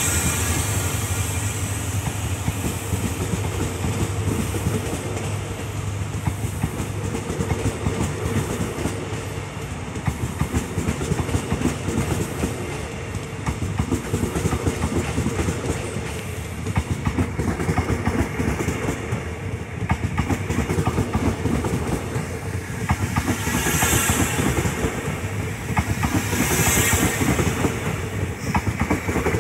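Passenger coaches of a departing express train rolling past close by, the wheels clickety-clacking steadily over the rail joints over a low rumble. Two brief hisses come near the end.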